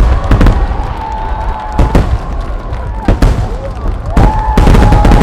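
Aerial fireworks shells bursting in a rapid barrage: sharp bangs a few times a second over a continuous deep rumble, with long steady whistling tones above.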